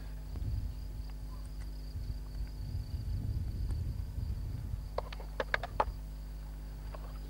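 Crickets trilling steadily over a low background rumble, with a quick run of sharp clicks about five seconds in.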